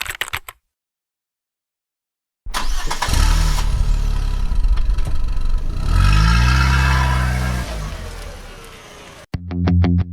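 A motor vehicle engine running and revving, its pitch rising and holding for a few seconds after a gap of silence. Distorted electric guitar music starts near the end.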